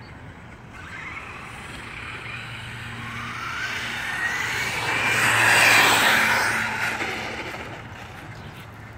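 Brushless electric motor of a Traxxas Summit RC monster truck on a 4S battery at full speed: a high-pitched motor whine that rises in pitch as it accelerates toward the listener, is loudest about halfway through, then fades as the truck speeds past and away.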